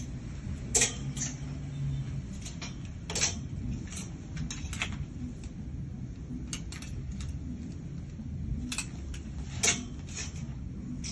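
Clothes hangers clicking and scraping on a metal clothes rail as garments are pulled off and held up, a dozen or so sharp clicks spread out, the sharpest about a second in, about three seconds in and near the end, over a steady low hum.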